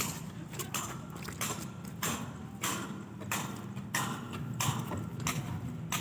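Concrete pump working, with a steady low engine hum and a regular beat of short noisy strokes about every two-thirds of a second as it pushes concrete through the pipeline.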